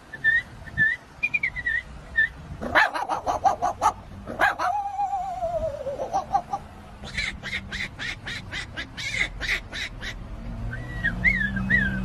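A man mimicking animal calls with his voice, one after another. There are short whistled bird-like chirps, then a few dog-like barks, a long wavering call that falls in pitch, a rapid run of duck-like quacks, and chirps again near the end.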